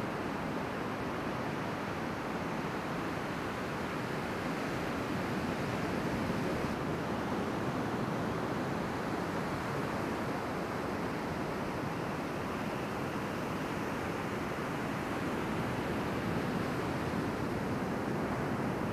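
Ocean surf breaking and washing up the beach: a steady, unbroken rushing wash.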